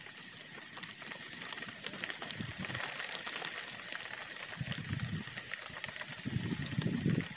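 A pile of dry leaves burning, crackling with many small sharp pops over a steady hiss. From about halfway in, low rushing gusts grow louder as the fire flares up.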